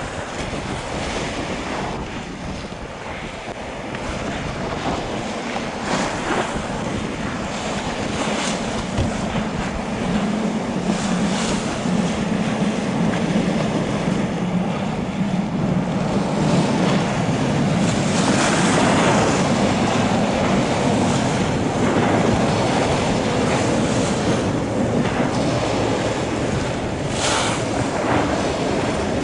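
Wind buffeting the microphone and choppy waves splashing, with the low drone of a small cruise boat's engine that grows louder about a third of the way in as the boat approaches.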